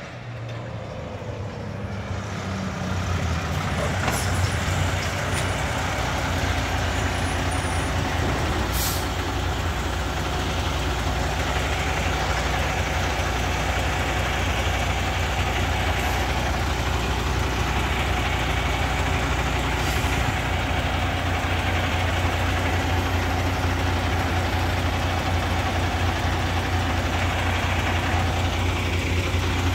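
Heavy diesel truck engine running close by. It gets louder over the first three seconds, then runs steadily with a low, even drone, and brief hisses come about nine and twenty seconds in.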